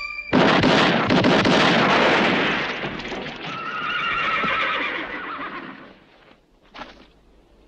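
A quick volley of revolver shots, loud and echoing, comes in suddenly just after the start. It is followed by horses whinnying in alarm for about two seconds. A single short sharp sound comes near the end.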